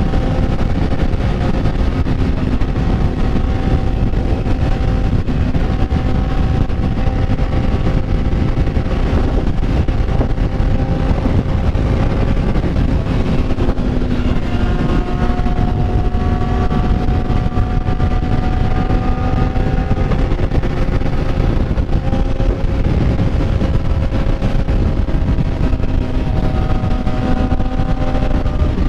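Motorcycle engine running while riding, its pitch slowly rising and falling as the revs change, over a steady low rumble.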